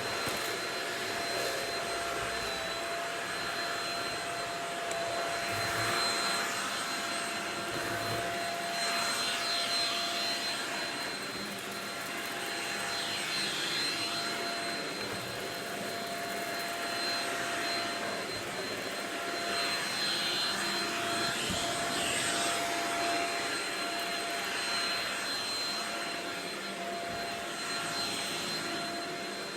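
Shark Rocket vacuum cleaner running: a steady motor whine over the rush of suction, swelling and easing slightly as it is pushed along.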